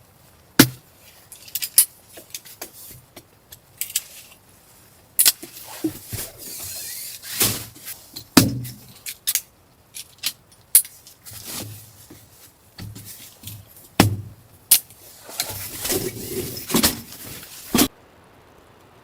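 Irregular sharp clicks and knocks mixed with rustling and scraping, stopping abruptly near the end.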